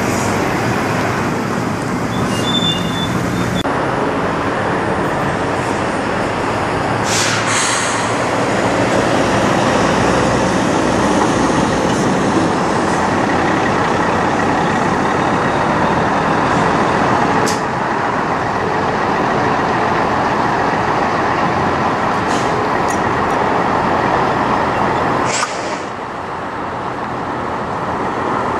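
Diesel engines of semi tractor-trailers running as the trucks pull slowly past, with a few short air hisses in between.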